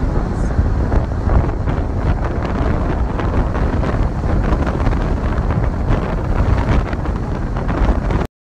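Wind buffeting the microphone of a phone held out of a moving car's window, a loud steady rush that cuts off abruptly near the end.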